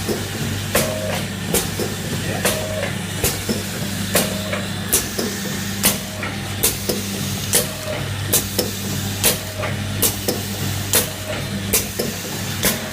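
Automatic liquid sachet filling and four-side-seal packing machine running: a steady motor hum with a sharp mechanical clack repeating evenly, slightly faster than once a second, as each sealing and cutting cycle completes, over a light hiss.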